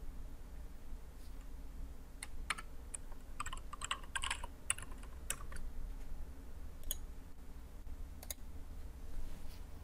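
Computer keyboard typing: a quick run of keystrokes from about two to six seconds in, then a few single clicks.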